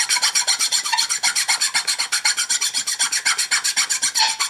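A steel hand file rasping across the edge of a small block of wood in fast, even back-and-forth strokes.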